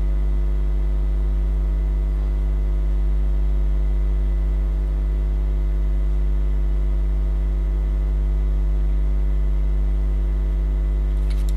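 Steady 50 Hz mains electrical hum: a deep, unchanging buzz with a ladder of higher overtones above it.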